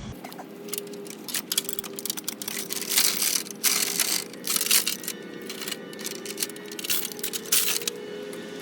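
Irregular metallic clicking and rattling from a homemade engine hoist and its chain as the rebuilt engine is lowered, with a faint steady hum underneath.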